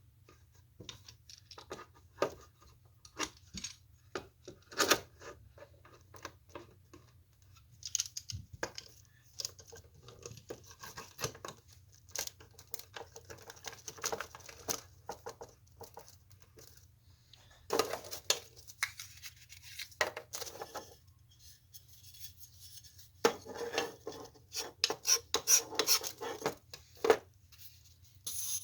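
Wood pieces and tools being handled at a workbench during a glue-up: irregular clicks, light knocks and scratchy rubbing, over a faint steady low hum, with a quieter stretch a little past halfway.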